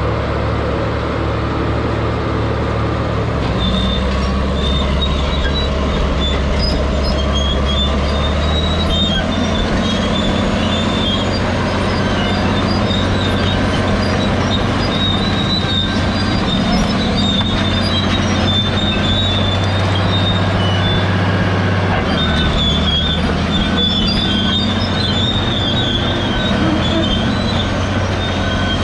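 Large Caterpillar crawler dozer running, its diesel engine note shifting a few times under changing load. High squealing comes and goes from the steel tracks and undercarriage.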